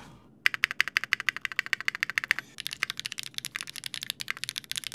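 Fast typing test on a full stainless-steel custom mechanical keyboard (Geonworks Raw ZERO prototype): a quick unbroken run of sharp keystroke clicks starting about half a second in. The board still has an annoying metallic ping, which the builder puts down to the stainless bottom housing resonating.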